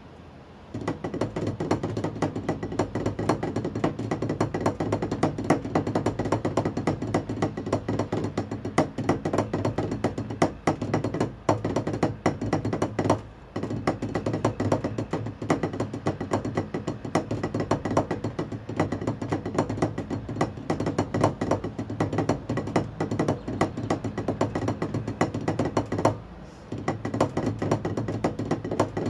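Wooden drumsticks on a Vic Firth practice pad playing a rudimental snare drum solo at a tempo of 74: dense, rapid, dry stick strokes. The playing starts about a second in and breaks off briefly about halfway through and again near the end.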